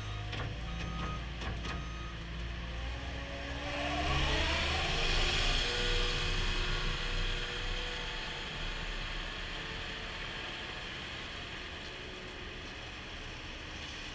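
CAT 289D compact track loader's diesel engine revving up as the machine drives off, with its backup alarm beeping for the first couple of seconds. The engine pitch rises about four seconds in, then the sound slowly fades as the loader moves away.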